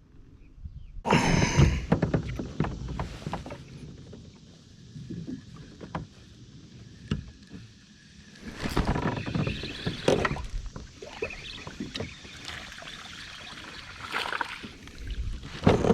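Sounds of a kayak in use on the water: paddling and knocks against the hull, in irregular bursts that start about a second in.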